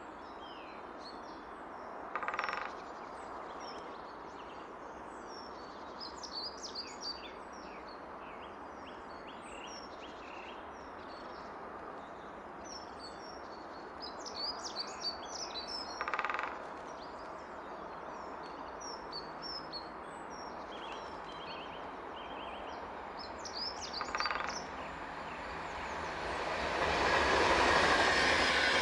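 Small birds chirping and twittering on and off over a steady background hiss, with three short, louder calls spaced through it. In the last few seconds the rush of an approaching train swells up and becomes the loudest sound.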